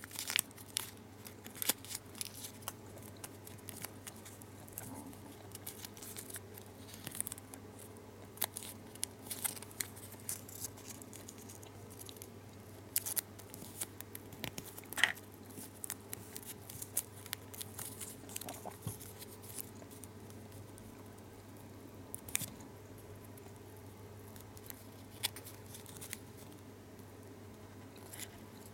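Small foil-lined Lotte Xylitol gum wrapper being folded and creased between fingers: irregular light crinkles and crackles, with a few sharper snaps, over a faint steady hum.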